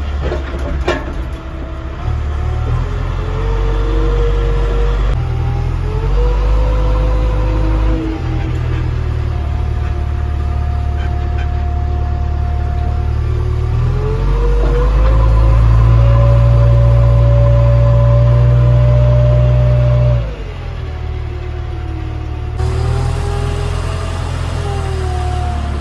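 JCB backhoe loader's diesel engine running, heard from inside the cab as the machine drives, its pitch rising and falling as the revs change. The engine is at its loudest and highest for about five seconds past the middle, then drops sharply, with a single click about a second in.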